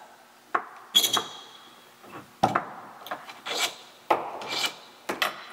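Mastercool hydraulic flaring tool being worked by hand: its metal die, clamp and handle parts click, knock and scrape together in several irregular sharp knocks, a few with a short metallic ring.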